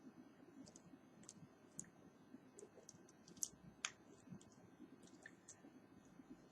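Faint, irregular light clicks and ticks from small parts and tools being handled during a phone repair, the sharpest two a little past the middle.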